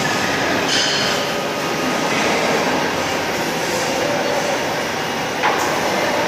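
Motorised steel-coil transport trolley driving across a concrete factory floor: a steady mechanical running and rolling noise, with one sharp click about five seconds in.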